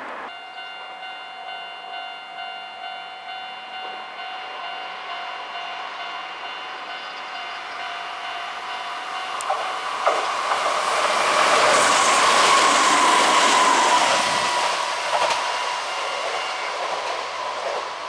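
A level-crossing alarm starts ringing with steady electronic tones. Then a Kintetsu electric train comes up and passes, its rumble and wheel clatter growing to a peak about twelve seconds in, with a whine that falls slightly in pitch as it goes by and then fades.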